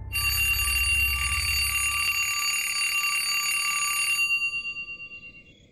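Alarm clock ringing: a continuous metallic bell ring that starts suddenly, stops about four seconds in and rings away over the next second. A low hum fades out beneath it in the first two seconds.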